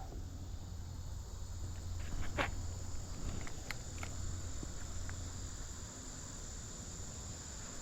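Insects trilling steadily on one high note, over a low rumble, with a few faint ticks.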